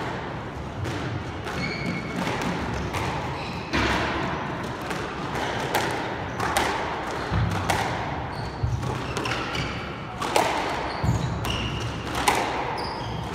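A squash rally: the ball is struck by rackets and smacks off the court walls again and again, with short high squeaks of shoes on the hardwood floor between the hits.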